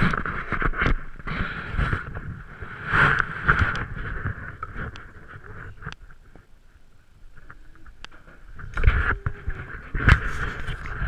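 Handling noise from a camera held against a person and moved about: fabric rubbing over the microphone and irregular knocks and bumps, louder near the start and again in the last couple of seconds.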